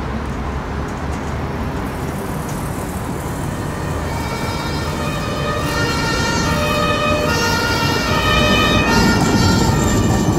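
Steady city traffic rumble, joined about four seconds in by an emergency vehicle's two-tone siren, alternating between two pitches for several seconds before it fades near the end.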